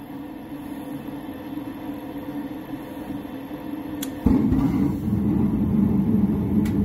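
The draft inducer of a two-stage Goodman propane furnace hums steadily. About four seconds in, the gas valve clicks open and the burners light on low fire with a sudden low rumble of flame that carries on steadily.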